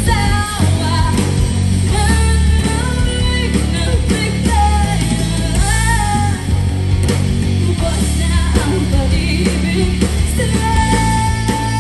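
Live rock band playing: drums and bass guitar with electric guitar, and a lead melody that bends and glides in pitch, ending on a long held note near the end.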